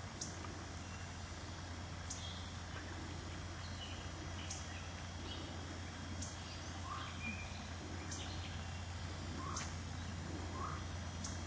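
Small birds chirping in the woods: short high calls repeating every second or two, some lower chirps between them, over a steady low hum.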